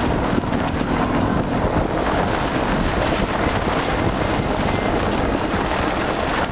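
Steady rushing noise of wind on the microphone from a moving car, mixed with the car's road noise on a snowy road.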